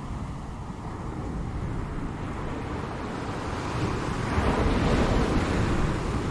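Ocean surf: a steady wash of waves, with one wave building from about four seconds in, breaking loudest around five seconds and easing off near the end. Wind noise on the microphone adds a low rumble.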